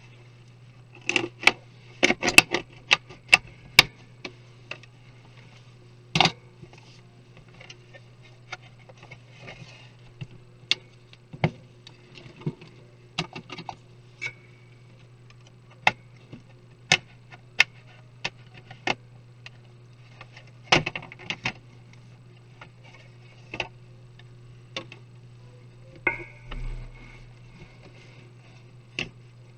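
Irregular small clicks and taps of plastic and metal laptop parts and tools being handled while a Lenovo IdeaPad 330 is taken apart, with a cluster of quick clicks near the start and a brief scrape near the end. A steady low hum runs underneath.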